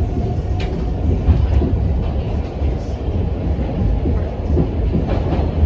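Subway train in motion: a steady, loud low rumble with a faint steady whine over it.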